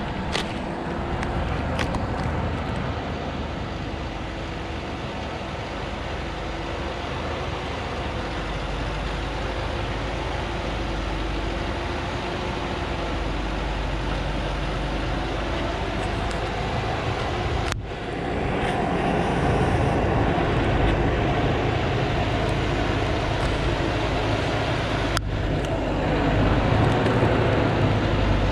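Diesel engine of a heavily loaded timber truck pulling up a steep dirt road, running steadily under load. It grows louder about two-thirds of the way through as the truck comes closer.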